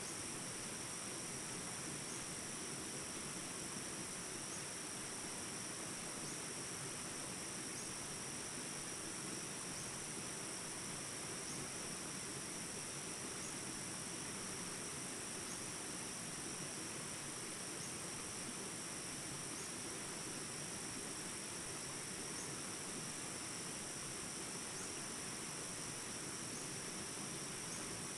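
Steady, high-pitched outdoor insect chorus that holds level throughout, with faint short chirps now and then.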